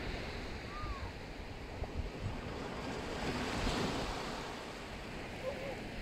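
Small waves breaking and washing up a sandy beach, with wind buffeting the microphone. The surf swells up about three and a half seconds in, then eases off.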